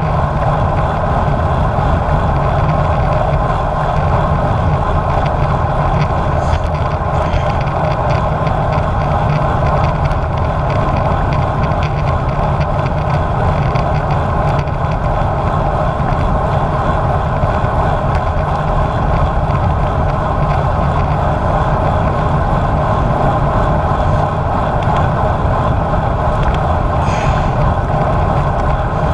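Steady wind rush and road noise from riding a road bike at speed, with wind buffeting the action camera's microphone, and a few faint ticks now and then.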